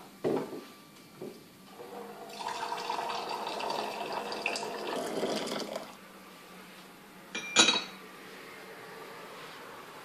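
Hot water running from an electric hot-water pot into a small porcelain teapot for about four seconds, then a single sharp porcelain clink as the teapot's lid is set on.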